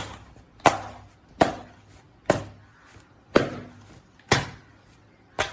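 Oiled porotta dough being swung out and slapped down on the worktop to stretch it thin, a sharp slap about once a second, seven times.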